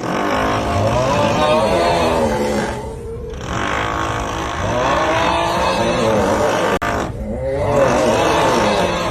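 The 'Uuuuuugghhhhh' snoring meme sound: a long, loud, groaning snore that rises and falls in pitch, looped about every three to four seconds over a steady drilling noise.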